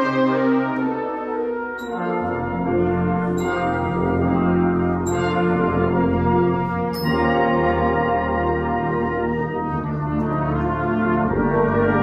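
Brass band playing sustained chords over a low bass line that comes in about two seconds in. A ringing percussion stroke sounds four times, about every second and a half.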